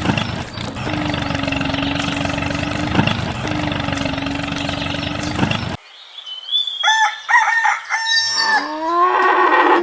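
A small motor runs steadily and cuts off suddenly about six seconds in. A second or so later a rooster crows.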